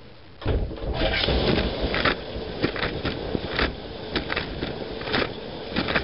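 Dishwasher wash cycle starting, heard from inside the tub: a faint low hum gives way about half a second in to loud spraying water from the spray arm, splashing against the racks and the camera with frequent sharp spatters.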